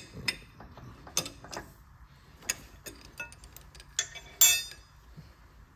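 Scattered small metallic clicks and clinks of hands working at a drill press vise and drilled steel block, with one louder, ringing clink about four and a half seconds in.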